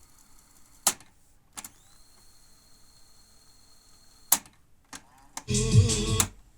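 Technics RS-4 cassette deck's transport keys clicking three times, with a faint high whine between the second and third click that rises briefly and then holds steady. Near the end, music plays for under a second and stops sharply.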